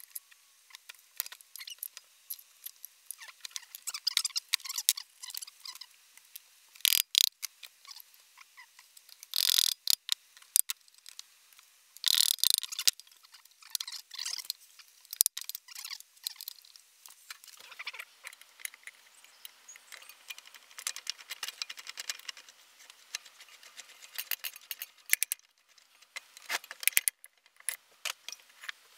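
Irregular clicks, taps and clinks of hand tools and small metal parts as a Honda GX160 small engine is taken apart by hand, with two longer noisy scrapes about ten and twelve seconds in.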